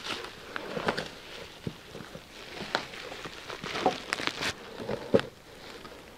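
Bubble wrap and cardboard packing rustling and crinkling, with scattered light clicks and knocks, as a wrapped hydraulic ram and its rubber hose are pulled up out of the box.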